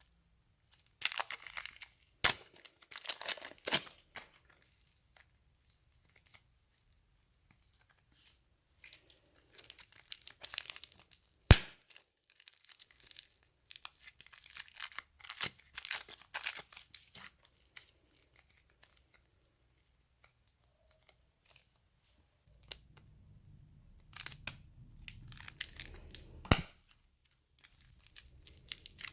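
Slime being pulled, squished and torn apart by hand: crackling, tearing sounds in three spells with quiet gaps between them, and a few sharp pops, the loudest about halfway through.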